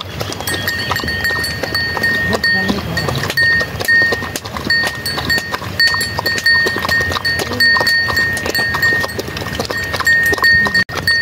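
Bells on a shepherd's flock of sheep and goats, ringing over and over in short stretches, with many small clanks and clicks.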